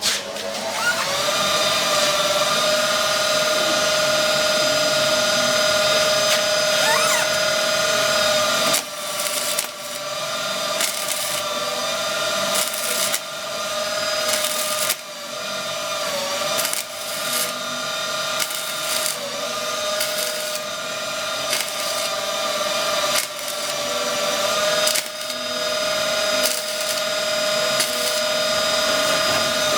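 Electric angle grinder spinning up to a steady high whine, then working steel car-body panel, its pitch and level sagging briefly several times as it is pressed into the metal.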